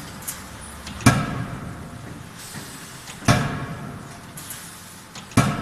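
Electro-hydraulic die forging hammer striking a hot workpiece in its dies: three heavy blows a little over two seconds apart, each followed by a metallic ring that dies away.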